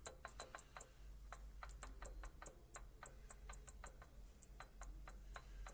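Faint, even light clicking, about four clicks a second, from a loose gearbox gear knocking: the gear driving the truck's power take-off has both axial and radial play, the cause of the noise when the PTO is engaged.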